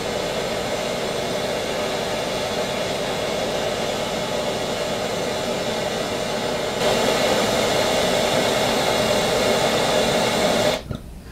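Bernzomatic handheld trigger torch burning with a steady hissing flame, heating a brass tube to anneal it. The hiss gets louder about seven seconds in and cuts off shortly before the end.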